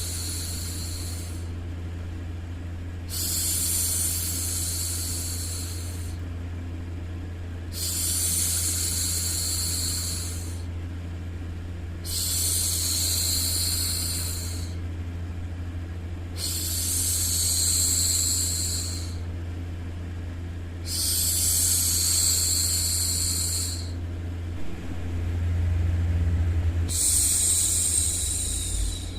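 A woman's voice making long 'shhh' hushing sounds, repeated in a slow, even rhythm about every four to five seconds, each shush lasting two to three seconds. A steady low hum runs underneath.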